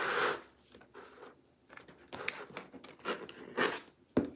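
Spiral-bound paper planners being handled: several short rustles of covers and pages rubbing and scraping against each other, then a sharp knock a little past four seconds in.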